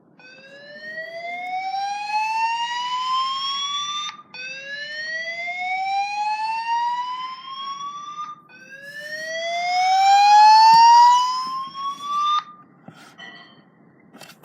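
Fire alarm speakers sounding a slow whoop: three tones, each rising steadily in pitch over about four seconds, the third loudest. It is the evacuation signal that comes before a fire alarm voice message.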